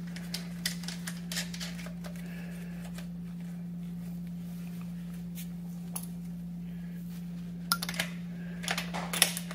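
Light metallic clicks and taps as a nut is spun by hand onto the rear suspension pivot bolt of an electric scooter, with a quicker run of clicks near the end, over a steady low hum.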